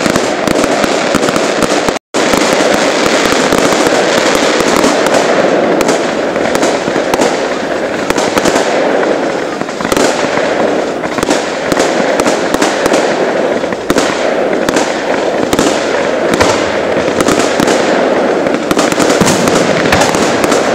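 Fireworks display going off close by: a dense, continuous barrage of rapid pops and bangs. The sound drops out completely for a moment about two seconds in.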